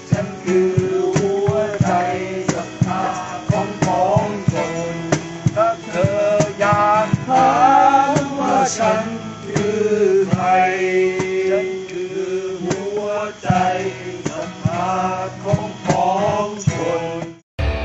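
A man singing a Thai song while strumming an acoustic guitar. The music stops abruptly near the end.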